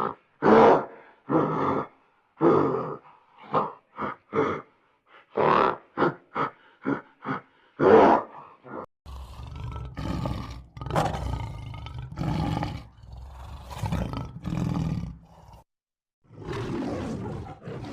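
A large animal calling: a run of short calls at first, then longer calls with a deep rumble underneath.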